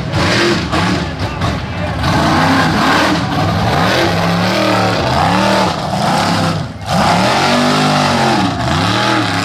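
A mud-bog mega truck's big engine revving, its pitch rising and falling over and over as the throttle is worked, with a brief let-off about two-thirds through.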